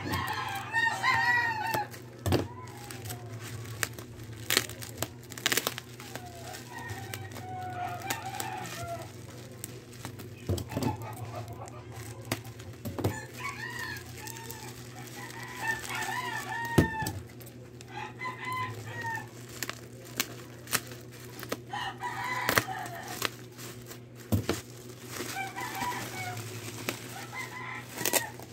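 Chickens clucking and roosters crowing in repeated bouts, over the crinkle of bubble wrap and plastic being unwrapped by hand, with sharp snaps. A steady low hum runs underneath.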